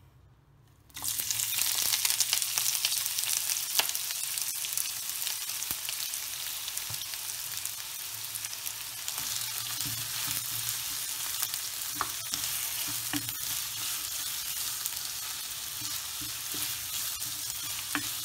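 Sliced onions dropped into hot sunflower oil in a non-stick pan start sizzling suddenly about a second in. The frying sizzle carries on steadily as they are stirred with a wooden spatula, with a few light taps.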